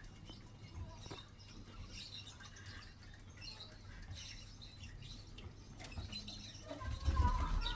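Pet lovebird making soft, scattered chirps, with a few light clicks. Near the end comes a louder low rumble.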